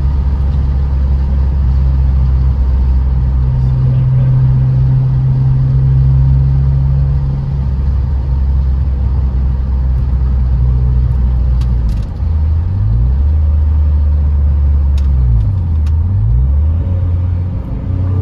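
Supercharged BMW E46's engine droning steadily, heard from inside the cabin while driving. Its pitch briefly drops and climbs back twice in the second half.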